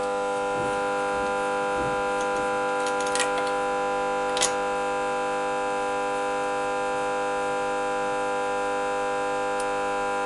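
A steady, unchanging hum with a high tone holds throughout, with two sharp metallic clicks about three and four and a half seconds in as the compression gauge is handled.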